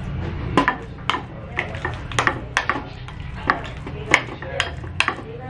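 Metal fork clinking and scraping against a ceramic bowl while mixing mashed hard-boiled egg with mayonnaise: about a dozen sharp clinks at uneven intervals, two or three a second.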